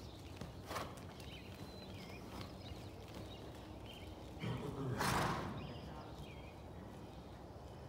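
A horse cantering on soft sand arena footing, with muffled hoofbeats. About five seconds in there is a loud snort lasting about a second.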